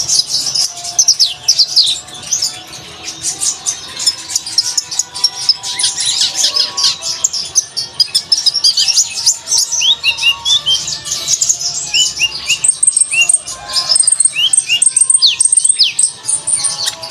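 A sunbird (kolibri ninja) singing a fast, continuous high-pitched twittering song of rapid chirps and short sweeping notes, with thin high whistled notes held briefly in the second half.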